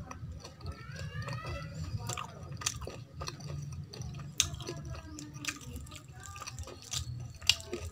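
Close-miked chewing of soft, wet rice and kadhi, with sharp wet mouth clicks scattered irregularly throughout, over a low steady background hum.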